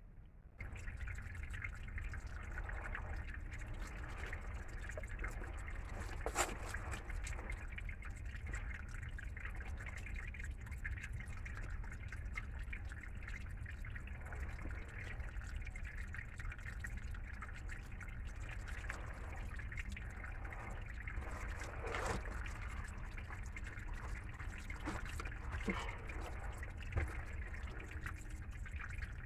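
Small stream of water trickling steadily over rocks, with a few brief sharp ticks scattered through it.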